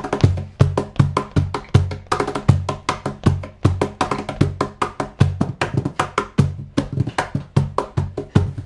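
Percussion music: a cajón played in a fast, steady rhythm, with deep bass slaps about twice a second and quicker, sharper hits on its face between them.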